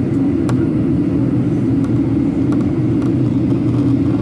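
Steady cabin noise of a Boeing 737-800 in flight: the CFM56 engines and the airflow over the fuselage make an even, loud drone.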